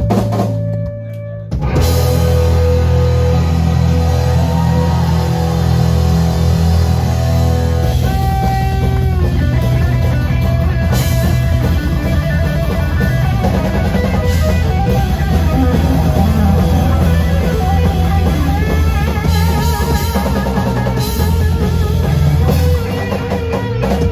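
Live instrumental rock power trio, with electric guitar, electric bass and drum kit, playing loudly. The band drops out briefly about a second in, then crashes back in. Later the guitar holds sustained, wavering lead notes.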